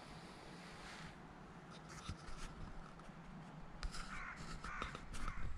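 Crows cawing several times over a faint low rumble, the calls coming thickest in the last second and a half before the sound cuts off suddenly.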